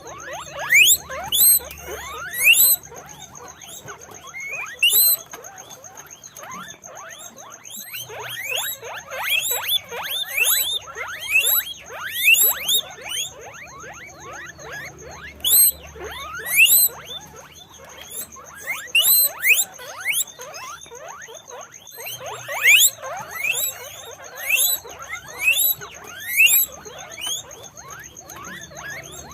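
Guinea pigs squeaking: many short, high, sliding squeaks in quick clusters, some bursts louder than others, going on throughout.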